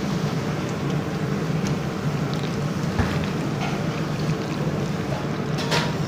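A steady low mechanical rumble, with a few faint wet squelches of raw chicken being mixed by hand in a thick egg and cornflour marinade.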